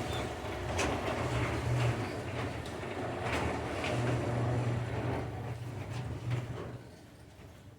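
Motorized garage door opener closing the garage door: a steady low motor hum and rumble with scattered clicks and rattles from the moving door. It stops about seven seconds in as the door reaches the closed position.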